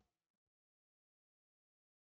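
Near silence: the last faint tail of the background music dies away in the first half second, then nothing.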